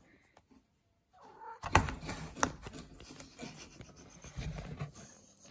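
Cardboard scraping and rustling as a cat moves and paws about inside a cardboard box, with a couple of sharper knocks about two seconds in.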